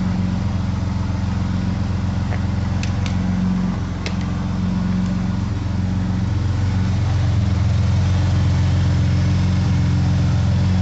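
Chevrolet Omega 3.0's straight-six engine idling steadily, with a few faint clicks a few seconds in. The alternator growl is gone: the alternator was rebuilt with new bearings, and the light ticking left is taken for the fuel injectors working.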